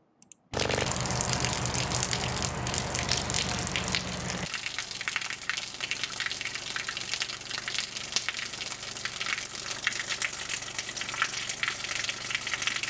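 Water streaming and gushing from a hose, an even splashing hiss that starts about half a second in. For the first four seconds or so a low steady hum from the loudspeaker that drives the stream sounds under it, then the water runs on alone.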